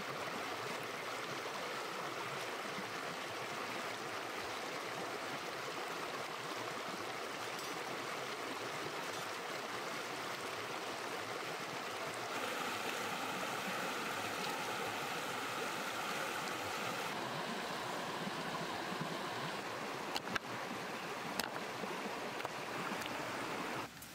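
Shallow river rushing steadily over rocks. The rush shifts slightly in tone about halfway through, and a few short knocks come about two-thirds of the way in.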